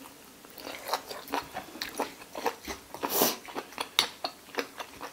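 Close-up chewing of pig ear, its cartilage crunching in short, irregular crisp bites two or three times a second, with one louder crunch about three seconds in.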